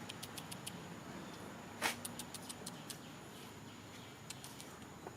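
An animal's short, high squeak sliding quickly down in pitch about two seconds in, with a scatter of faint sharp clicks before and after it.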